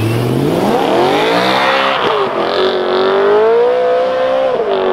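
BMW M3's V8 accelerating hard as the car pulls away, the pitch climbing steeply, dropping at a gear change about two seconds in, then climbing again and falling back near the end.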